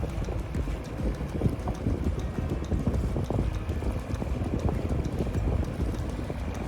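Sailing yacht's inboard engine running steadily while motoring, with wind buffeting the microphone and a rapid irregular clatter of small knocks over it.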